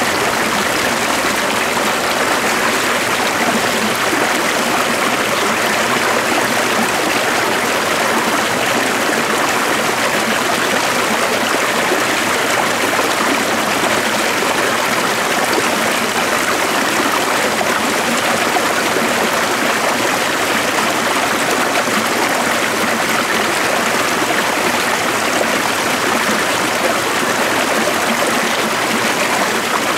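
Stream water flowing: a steady, even rush with no breaks or changes.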